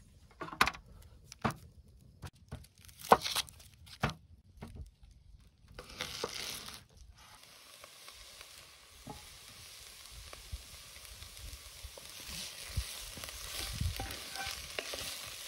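A few sharp knocks about a second apart, a knife on a wooden cutting board, then chopped onions sizzling steadily in a cast iron Dutch oven as they are stirred with a wooden spoon.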